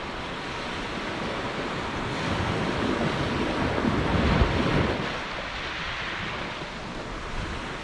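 Gusty wind buffeting a GoPro's microphone: a steady rush with a louder, rumbling gust in the middle.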